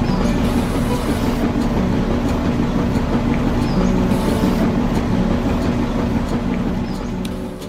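Small USB-powered DC motor in a miniature model hand pump running steadily, working the pump handle back and forth with a continuous mechanical whir.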